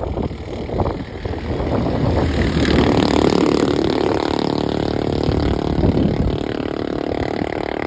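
Motor vehicle engine running, most likely a motorcycle on the move, with a steady rushing noise that builds up about three seconds in.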